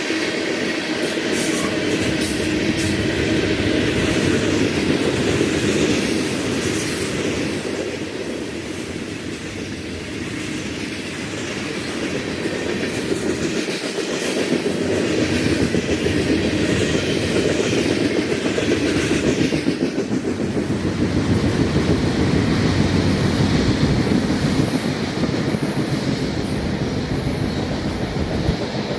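Freight train rolling past, its cars' wheels clicking and rattling over the rails in a steady stream. The sound eases a little about ten seconds in, then builds again.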